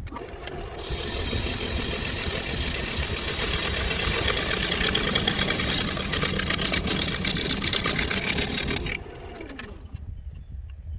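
A power tool runs hard for about nine seconds with a loud, hissing, whirring noise, then is switched off and winds down with a falling hum.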